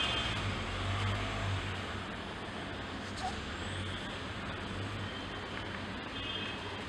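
Steady background rumble and hiss of distant road traffic.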